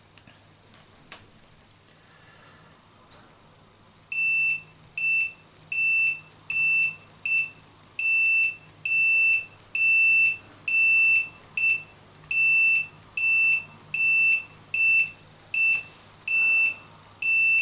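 Multimeter continuity beeper sounding a high steady tone in a run of short beeps of uneven length, about one a second, starting about four seconds in: each beep is the mouse's left-button microswitch closing as it is pressed, and a beep on every press means the switch, dosed with DeoxIT, now makes contact reliably. A single sharp click about a second in.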